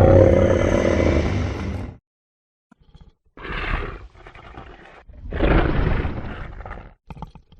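Tarbosaurus dinosaur vocalization sound effect: a long, deep roar that fades out about two seconds in, then after a pause two shorter roars, the second longer and louder, and a few brief faint sounds near the end.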